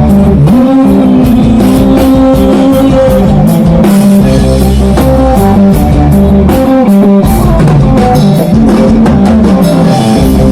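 Rock-style band music, guitar and drum kit playing an instrumental passage between sung verses of a Filipino song.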